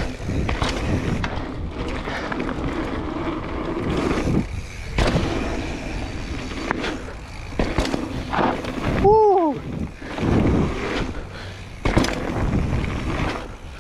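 Mountain bike ridden fast down a dry dirt jump trail, heard from a chest-mounted camera: steady tyre and rushing noise, with sharp knocks and rattles as the bike lands and hits bumps. A short rising-and-falling tone comes about nine seconds in and is the loudest moment.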